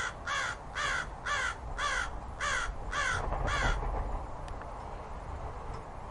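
Corvid cawing, eight harsh calls in a quick series of about two a second, each falling in pitch; the calls stop about four seconds in, leaving a low steady background.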